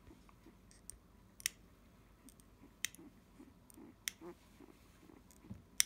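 Small lever-type nail clipper snapping shut as it trims a newborn Labrador puppy's claws: four sharp clicks, roughly every second and a half, with a few fainter ticks between.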